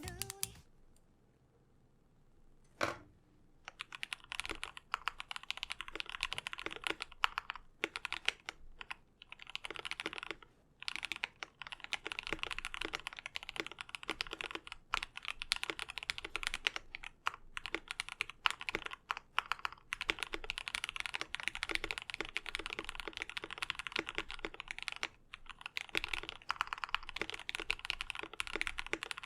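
Typing on a KBD67 Lite mechanical keyboard fitted with Gateron Yellow linear switches lubed with Krytox 205g0: a single keystroke about three seconds in, then fast continuous keystrokes with a few brief pauses.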